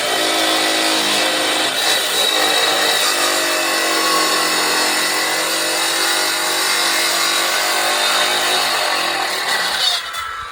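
A motor running steadily at high speed, its pitch drifting slowly, cutting off abruptly about ten seconds in.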